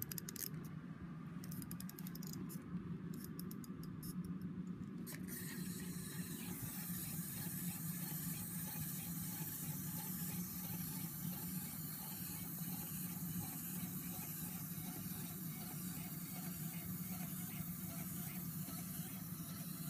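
Wind-up Frankenstein's monster toy walking, its clockwork running with a steady whirr, faint ticking and scraping. A hiss joins about five seconds in.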